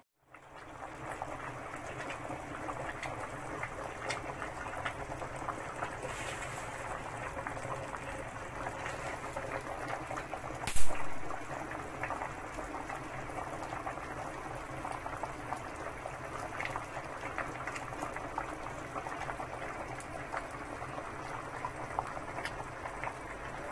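A stainless-steel pot of balbacua stew at a rolling boil, giving a steady bubbling with many small pops. This is the final boil to blend the seasoning into the already tender meat. A single sharp knock sounds about eleven seconds in.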